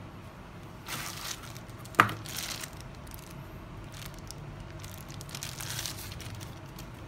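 Thin plastic bag and cardboard box rustling and crinkling in gloved hands, in several short bursts, with one sharp click about two seconds in that is the loudest sound.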